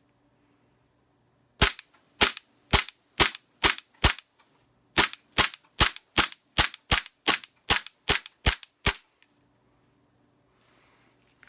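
Tokyo Marui Glock 19 gas-blowback airsoft pistol firing semi-automatic: six sharp shots about two a second, a pause of under a second, then eleven quicker shots about two and a half a second.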